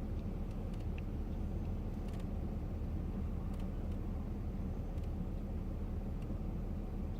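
Steady low rumble of airport background noise, with a few faint ticks.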